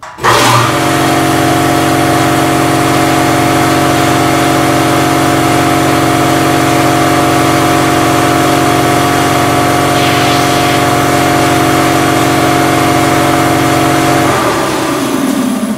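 Quincy vertical air compressor with a twin-cylinder, belt-driven pump and electric motor, powered from a 240-volt supply. It starts at once, runs steadily and loudly, then is switched off near the end and winds down with a falling pitch. It starts cleanly and runs normally on its new 240-volt supply.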